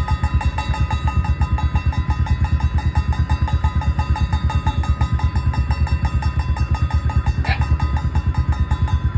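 Off-road motorcycle engine idling through an aftermarket muffler with a steady, fast exhaust pulse. Several steady high-pitched tones ring over the idle, and a short sliding squeak comes about three-quarters of the way in.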